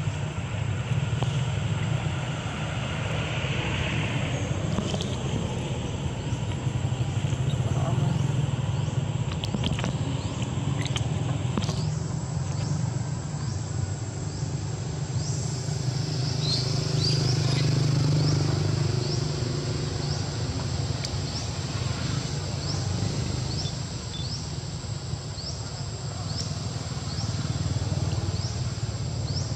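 Outdoor ambience: a steady low rumble like distant engines or traffic, with a short high chirp repeating about once a second from about halfway on.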